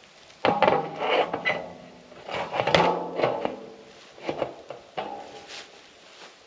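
Timed spin-cast deer feeder going off: its motor spins the broadcast plate with a steady whir while corn kernels clatter as they are flung out. It starts suddenly about half a second in and runs in spurts, weakening after about three seconds and stopping well before the end.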